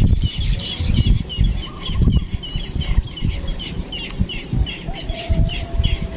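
A bird calling repeatedly, short chirps at about three a second, over a low rumbling noise.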